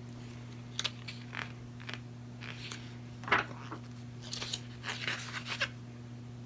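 Pages of a photobook being turned and handled: a series of short paper rustles and snaps, the sharpest a little past three seconds in, with a quick run of them near the end. A steady low hum runs underneath.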